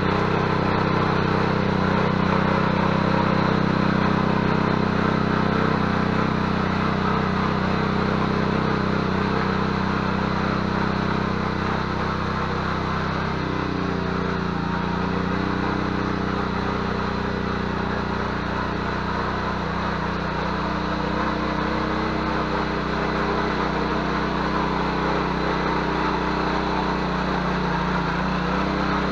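Petrol engine of a Ruris 731K motor hoe running steadily as it tills soil, its note changing slightly about thirteen seconds in.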